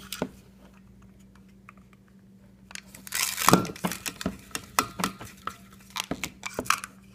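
RG6 quad-shield coax being stripped with a coax stripping tool: a loud scraping rush about three and a half seconds in as the jacket is cut and pulled, then irregular clicks and rattles of the tool and cable.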